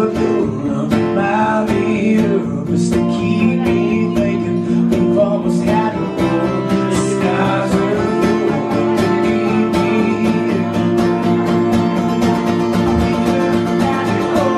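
Acoustic guitar strummed along with a voice singing a song.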